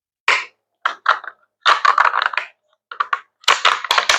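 Parts of a modular hydroponic tower base being pushed and forced together by hand: a string of short, irregular scraping and crackling bursts with brief silences between them, as the tight-fitting piece goes into the middle.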